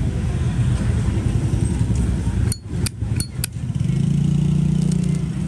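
Low rumble of motorbike street traffic, with an engine tone swelling near the end. A little past halfway there is a quick run of about four sharp clicks.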